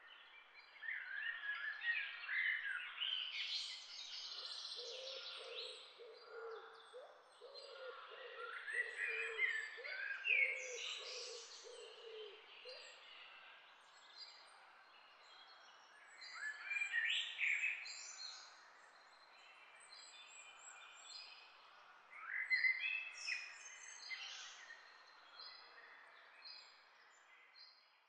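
European goldfinches singing: four bursts of fast, liquid twittering song with quieter chirps between them. Through part of the first half a low-pitched call from another bird repeats evenly beneath the song.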